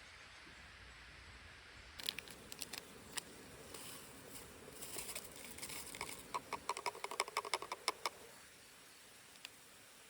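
Rustling and crinkling with scattered sharp clicks. About six seconds in comes a quick, even run of ticks lasting about two seconds, then only faint outdoor ambience.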